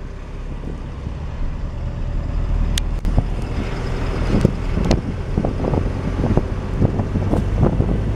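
Cabin noise inside a moving coach bus: a steady low rumble of engine and road noise, with a few short knocks and clicks.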